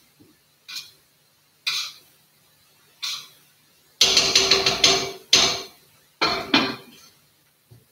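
Kitchen clatter at a counter: light knocks about a second apart, then from about four seconds in a quick run of heavier knocks and bangs, some ringing briefly.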